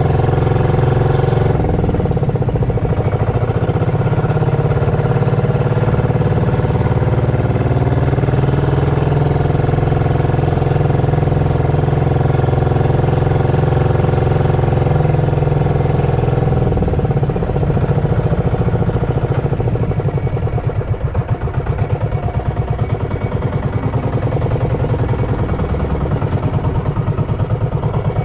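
Inboard engine of a motorized outrigger boat (bangka) running steadily under way, then throttled back about two-thirds of the way through to a slower, beating idle as the boat comes in toward shore.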